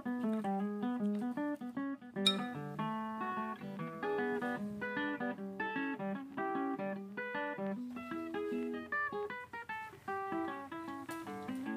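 Background music of plucked acoustic guitar playing a melody over a lower line, with one sharp click about two seconds in.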